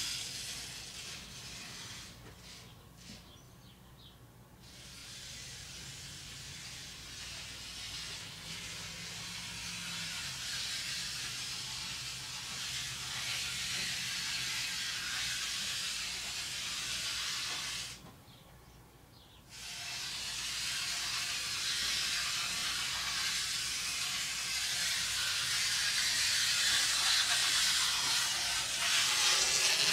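Plastic masking film rustling with a steady hiss as it is drawn around the motorhome. The hiss cuts out suddenly twice, for a couple of seconds each time, and grows louder near the end.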